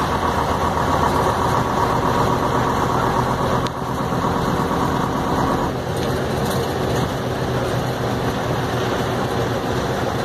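1949 Bristol K5G double-decker bus's Gardner five-cylinder diesel engine running under way, heard from the driver's cab. The engine sound drops a little a little under four seconds in, and a high tone over it stops a little over halfway through.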